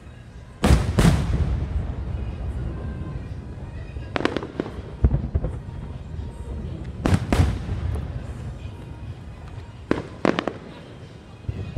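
Aerial fireworks shells bursting overhead: loud booms, often two or three close together, coming about every three seconds, each followed by a low rumbling echo.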